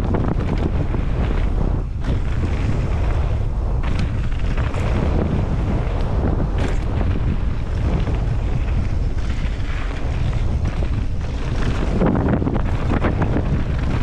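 Wind rushing over a helmet-mounted microphone on a fast mountain-bike descent of a dirt trail, with a steady rumble and many small knocks and rattles of the tyres and bike over rough ground, thickest near the end.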